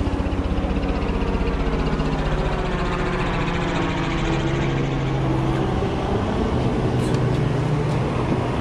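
A steady low engine-like drone over a continuous rushing hiss.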